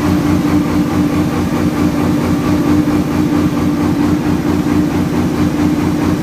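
Diesel generator set running steadily at about 1800 rpm with no load on it: a steady tone over a low, even pulsing.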